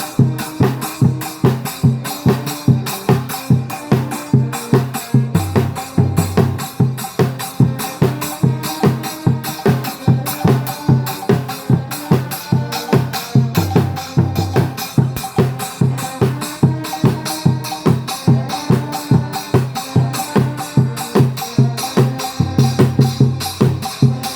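Trombone band with drums playing a tune over a steady drum beat, low brass notes held under it.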